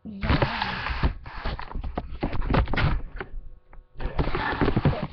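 Loud rustling and crackling of a box and its packaging being handled and rummaged through, in two stretches with a short lull about three and a half seconds in.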